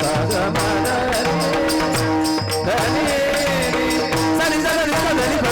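Devotional kirtan music: a singing voice gliding through an ornamented melody over steady held drone notes, with small metal hand cymbals keeping a fast, even beat and a low drum pattern underneath.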